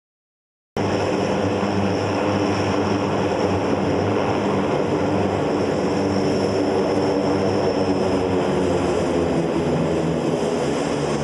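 Lockheed C-130J Hercules' four turboprop engines running as it taxis: a steady propeller drone with a high turbine whine above it. The sound cuts in suddenly about a second in.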